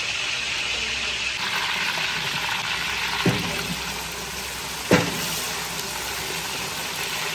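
Beef chunks sizzling in hot oil with golden-fried onions in a large cooking pot, a steady hiss broken by two dull knocks about three and five seconds in.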